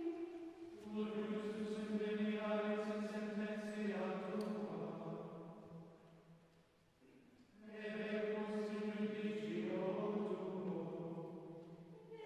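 A choir chanting the Liturgy of the Hours in unison, sustained plainchant lines in two phrases. The first phrase fades out about six seconds in and the next begins just under two seconds later.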